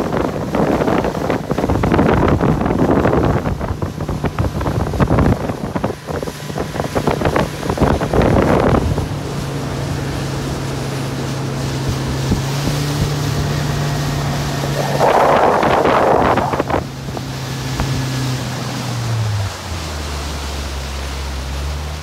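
Small boat under way: heavy wind buffeting the microphone and water rushing past the hull, with the boat's engine running at a steady pitch. About nine seconds in the wind eases and the engine note stands out, with another gust of wind noise a little later; near the end the engine note drops as the boat is throttled back.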